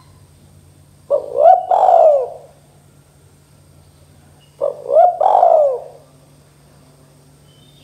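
Spotted dove cooing: two calls of three notes each, about a second long, the second some three and a half seconds after the first.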